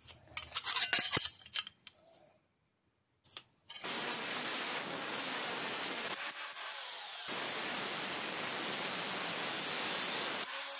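A felt-tip marker scratching a line on steel, with a few light clicks. Then, about four seconds in, an angle grinder's cut-off disc cuts through steel angle: a steady grinding hiss that runs until just before the end.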